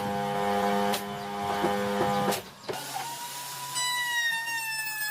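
Electric power tool motor running with a steady hum and a light click about once a second. After a short break about halfway through, a high whine sets in and falls slowly in pitch.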